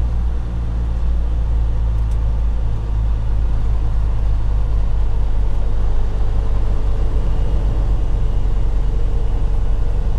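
Inside the cab of a Freightliner Cascadia semi truck while driving: a steady low engine drone with road noise, growing slightly rougher and louder about three seconds in.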